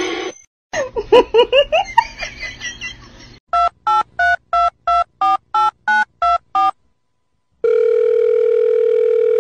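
Telephone keypad dialing beeps, about ten short tones at roughly three a second with the pitch changing from key to key, then a short silence and a long steady phone line tone. Before the dialing there is a run of short squeaky chirps that glide up and down.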